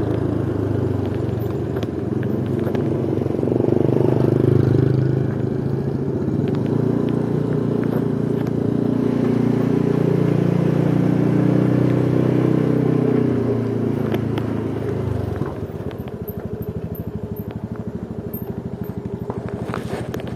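Motorcycles running at low speed while one tows the other, a steady engine drone mixed with road and wind rumble. About 15 seconds in it eases off and settles into an engine idling with a quick, even beat.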